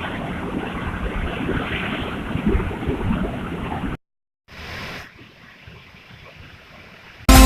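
Steady rushing water, a waterfall's noise, which breaks off suddenly about four seconds in and returns fainter after a short burst. Music starts at the very end.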